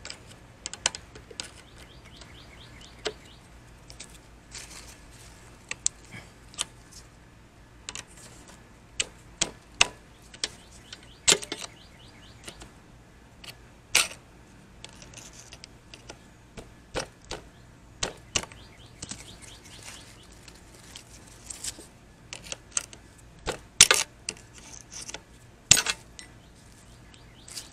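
Screwdriver clicking, tapping and scraping against a retaining clip on a Porsche Boxster's plastic radiator bracket as the clip is pried off, in irregular light clicks with a few sharper snaps about halfway and twice near the end.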